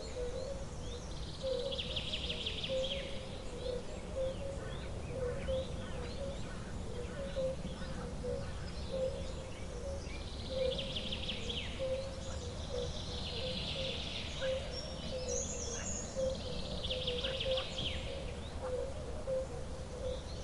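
Bird-filled wildlife ambience: buzzy trilling songs every few seconds and scattered chirps, over a steady low rumble. A short, lower call repeats about once a second throughout.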